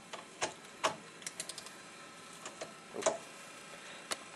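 About a dozen light clicks and taps at irregular spacing, the handling sounds of a hand torque wrench being set to 125.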